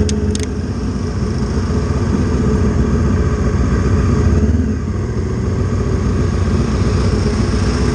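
Honda CB500 racing motorcycle's parallel-twin engine running at low revs as the bike rolls slowly along, heard from a camera mounted on the bike. Two short clicks sound just after the start.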